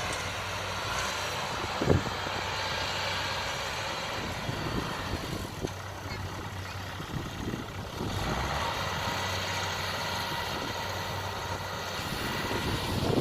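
Kubota DC70 combine harvester's diesel engine running steadily under working load, with one sharp knock about two seconds in.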